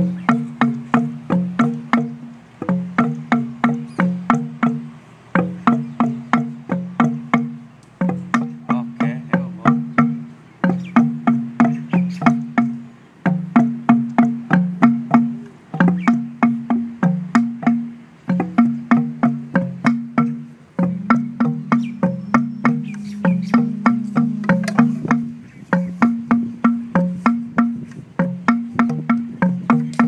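Kāʻekeʻeke, Hawaiian bamboo stamping pipes of different lengths, stamped end-down on a cloth-covered ground by several players. They sound a quick rhythm of hollow, low-pitched tones at several pitches, in repeating phrases with brief pauses between them.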